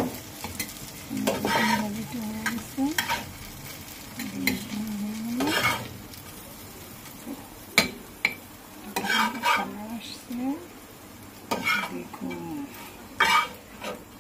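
Metal spatula scraping and lifting fried eggplant slices and egg in a nonstick frying pan: about eight scraping strokes with sharp clicks of the spatula against the pan, over a low sizzle of frying oil.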